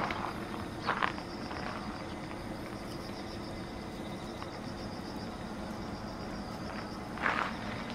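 Outdoor yard ambience: insects chirping in a steady, fast-pulsing high trill over a low, even rumble, with two brief scuffs on gravel, about a second in and again near the end.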